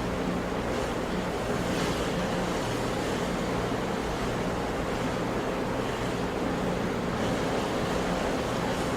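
Sea waves washing on a shore: a continuous rushing, with brief hissing swells about two seconds in and again near seven seconds. A faint steady low hum runs underneath.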